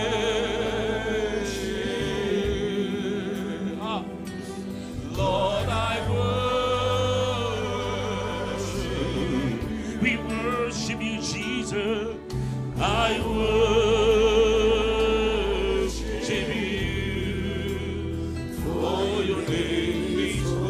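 Live gospel worship music: a voice holds long sung notes with vibrato in several phrases over sustained instrumental accompaniment with a steady bass line.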